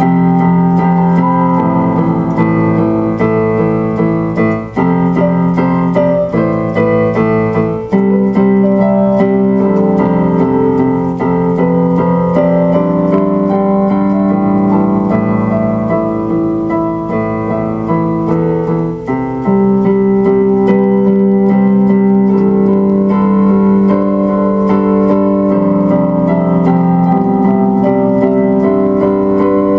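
Solo electronic keyboard played with a piano sound: slow, held chords that change every few seconds.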